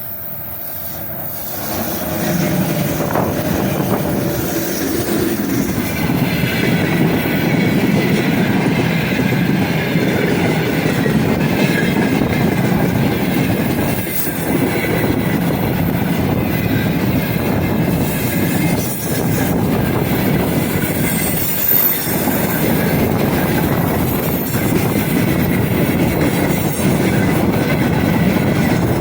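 A freight train hauled by a 3ES5K "Ermak" electric locomotive rolling past at speed. The wheels clatter steadily over the rail joints as the wagons go by. The sound grows louder over the first two seconds as the train arrives, then holds steady.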